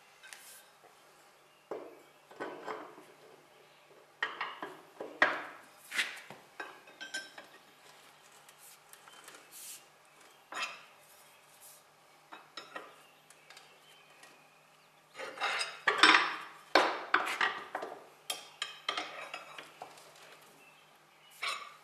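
Socket wrench clinking and clanking on the steel bolts and eccentric bodies of an Allis-Chalmers power-shift wheel rim while the mounting bolts are tightened. It comes in irregular groups of sharp metal clinks, with a dense run of clanks about three quarters of the way through.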